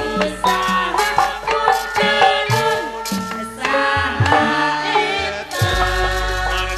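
Sundanese gamelan music with female sinden voices singing into microphones over it, driven by kendang drum strokes, some of them low and sliding in pitch.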